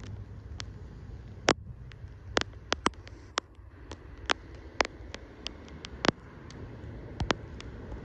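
Mute swans feeding at the water surface, their bills making sharp, irregular clicks and snaps, about two a second, over a low steady wind rumble.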